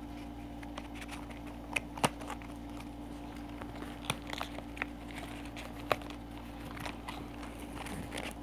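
Scattered light clicks and crinkles of toy packaging being handled and rummaged through, over a steady low hum.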